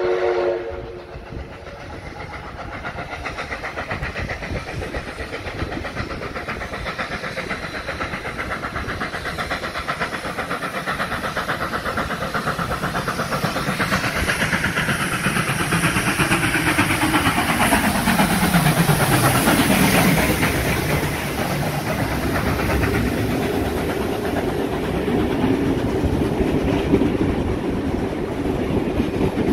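A steam whistle cuts off about a second in. A NSW 59 class steam locomotive then approaches, getting louder, and passes at speed around the middle with a falling pitch as it goes by. Its train of vintage passenger carriages follows with a steady clatter of wheels over the rail joints.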